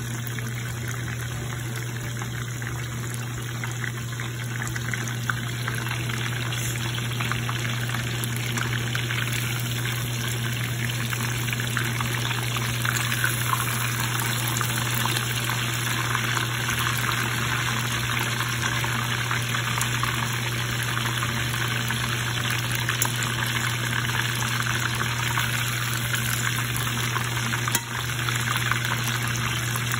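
Breaded patties frying in hot oil in a pan: a steady sizzle of bubbling oil that grows a little louder after the first few seconds, over a steady low hum.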